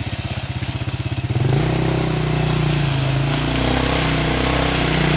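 Off-road buggy engine running at low revs with an even pulse, then revving up about a second and a half in and holding the higher revs as the buggy pulls through mud.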